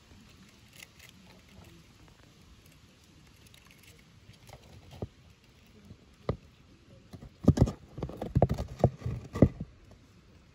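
A clear plastic tub knocking and scraping against the stones of a shallow stream: two single taps, then a quick run of loud knocks lasting about two seconds near the end.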